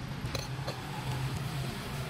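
Steady low mechanical hum, with a few faint clicks about half a second in.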